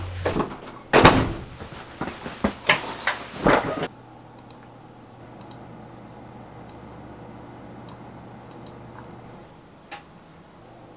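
A wooden door being opened and shut, a handful of loud knocks and thuds over the first four seconds. Then a quiet room hum with a few faint clicks of a computer mouse.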